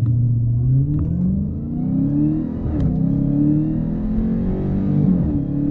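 2020 Dodge Challenger Hellcat Widebody's supercharged 6.2-litre HEMI V8 at full throttle in a 0-60 mph run, limited to 500 horsepower by the black key. The engine note climbs, then drops at two upshifts, one near three seconds in and one about five seconds in.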